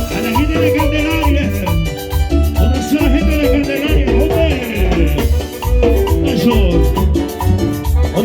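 Upbeat Latin dance music with a heavy, steady bass beat and a bright melody over a ticking percussion rhythm, played loud through a party sound system.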